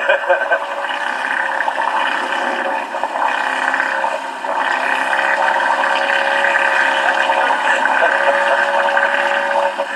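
A small boat's motor running steadily, with water rushing and splashing around the hull.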